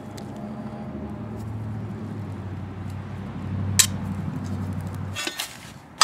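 Metal sump-pump parts clinking and knocking as they are worked apart by hand, with a sharp click near the middle and a few clinks near the end. A low steady hum sits under them and stops about five seconds in.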